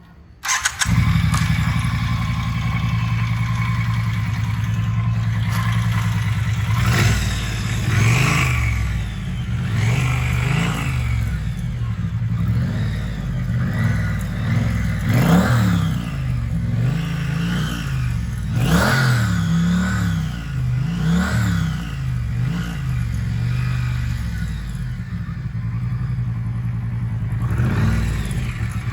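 Triumph Street Twin 900 cc parallel-twin motorcycle engine through its stock exhaust. It starts about a second in and idles steadily. From about seven seconds on it is revved with a series of short throttle blips, each rising and falling in pitch, with idle between.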